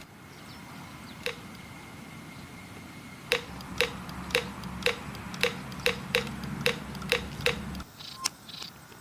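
Sharp, regular clicks, about two a second, over a low steady hum, starting about a third of the way in and stopping shortly before the end.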